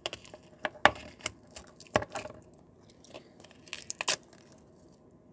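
Plastic wrap being torn and peeled off a small stretched canvas: irregular crinkling and tearing that stops about four seconds in.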